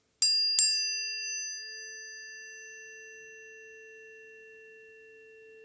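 Planetary tuning forks for Venus and Pluto struck twice in quick succession, then ringing on as a few pure, steady tones that slowly fade, the bright metallic overtones dying away first.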